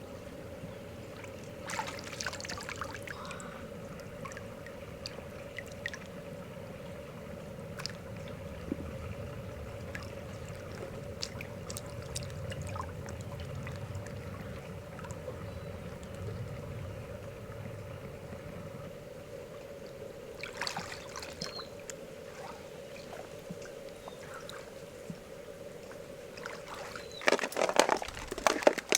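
Water sloshing and splashing, with scattered small splashes and a louder burst of splashing near the end, over a steady hum.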